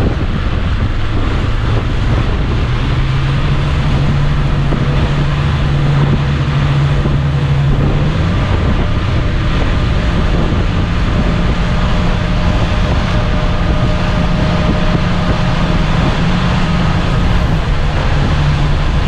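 Mercury Verado outboard running hard as the boat gets under way. Its engine note climbs about three seconds in and again about eight seconds in, then eases back slightly near the end. Wind buffeting the microphone and water rushing past the hull run throughout.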